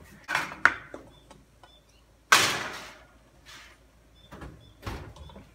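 Oven door opened and a metal baking tray set onto the oven rack: a few clicks and clanks, a sudden rush of noise about two seconds in that fades over half a second, and a knock near the end.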